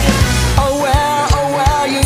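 Rock song with a steady kick-drum beat. The heavy low guitar and bass drop out about half a second in, leaving the drums and a wavering melody line.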